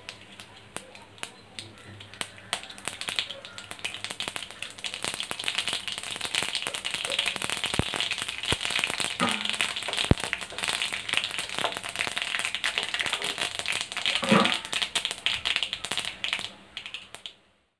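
Mustard seeds spluttering and popping in hot oil with dried red chillies frying, the tempering (tadka) stage: a sizzle with many sharp crackles that builds up about two seconds in and dies away near the end.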